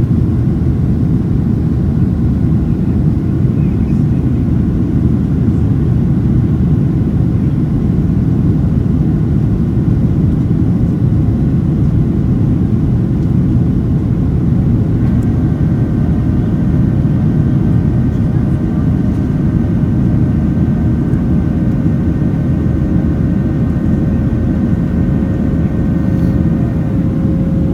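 Inside the cabin of a Boeing 737-700 climbing after takeoff: its CFM56-7B engines and the airflow make a steady, loud low rumble. About halfway through, a set of steady higher engine tones comes in and holds.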